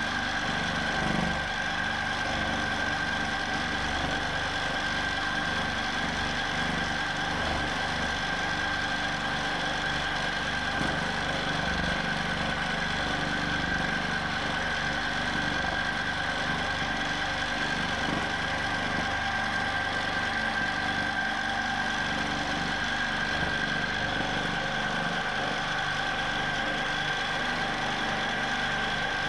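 Q'nique 19 longarm quilting machine running steadily, an even motor whine that holds its pitch.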